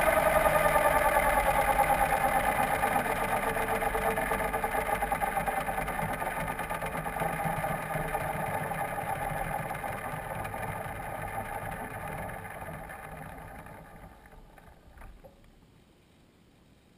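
Align T-Rex 550E electric RC helicopter's rotor and brushless motor spinning down after landing, heard from its onboard camera. The whine fades steadily and is gone about fourteen seconds in, leaving near silence.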